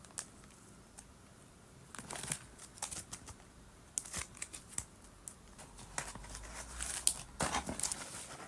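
Packaging crinkling and rustling in short, scattered bursts as a parcel is unwrapped by hand, with a few light clicks.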